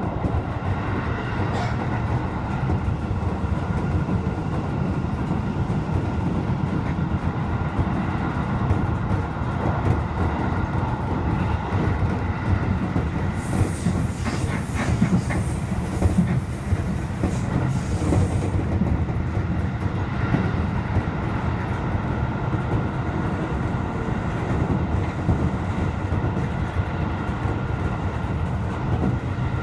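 Seibu 2000N-series electric train running along the line, heard from inside the front car: a steady rumble of wheels on rail, with a spell of higher hissing and clicks about halfway through.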